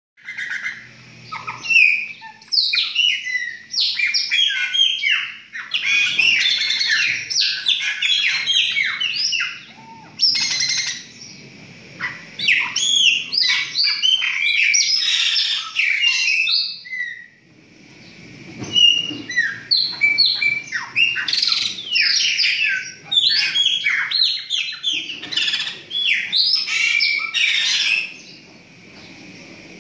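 Chopi blackbirds (pássaro-preto) singing: fast runs of loud whistled and chattering notes, in phrases of a few seconds with short breaks between.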